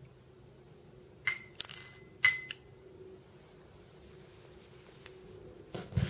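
A small metal americium-241 source button dropped into a glass dish: about a second in, a sharp clink followed by three or four quick ringing rattles as it bounces and settles, over about a second and a half.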